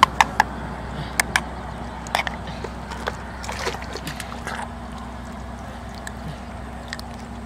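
Hands working in wet mud, picking up snails: wet sloshing and squelching with a scatter of sharp clicks as the snail shells knock together, over a steady low hum.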